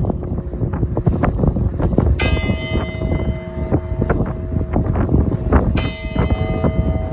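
Large bronze Tide and Time Bell struck twice, about three and a half seconds apart, each strike ringing on in a rich cluster of lingering tones, with the hum of an earlier strike still sounding at the start.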